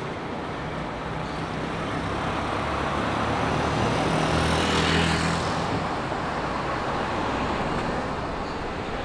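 City street traffic with a car and a motorcycle driving past close by. Their engine hum and tyre noise swell to a peak about five seconds in and then fade, over a steady background hum of traffic.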